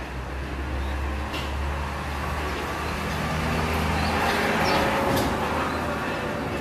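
Road traffic: a steady low engine hum, then a broad rushing noise that swells about four to five seconds in, as a vehicle passes, with a couple of faint clicks.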